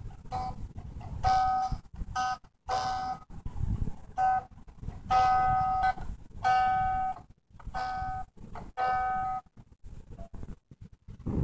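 Battery toy electric guitar sounding electronic beeping notes through its small built-in speaker, mostly at one steady pitch, in a string of short and longer presses with gaps between them.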